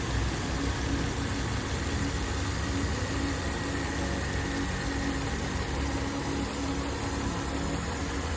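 A 2018 Ram 1500's 3.6-litre six-cylinder engine idling steadily.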